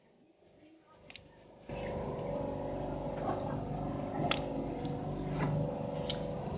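Sharp clicks of small plastic and metal phone parts being handled and pried apart. A steady droning hum starts abruptly a little under two seconds in.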